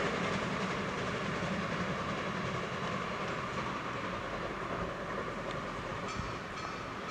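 Heritage steam train's old passenger carriages rolling away on the track, a steady rumble of wheels on rails that slowly fades as the train recedes.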